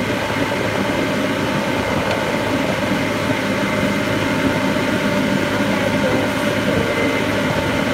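A golf cart driving along: a steady motor hum with the rumble and rattle of the cart rolling, loud and unchanging.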